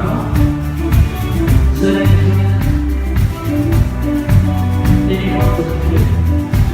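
Live rock band playing an instrumental passage, with held bass notes under pitched chords and a regular drum beat.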